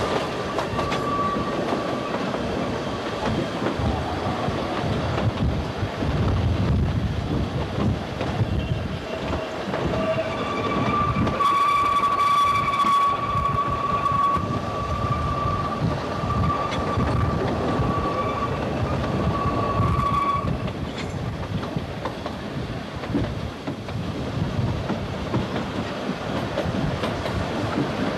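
Oigawa Railway Ikawa Line train running, heard from on board: a steady rumble with wheels clicking over the rails. About ten seconds in, a long, steady high-pitched tone rises over the running noise and holds for about ten seconds before cutting off.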